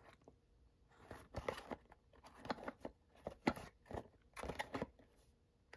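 Hands turning a small cardboard toy box over: soft, scattered scrapes and taps of fingers on the cardboard, coming in short clusters about once a second.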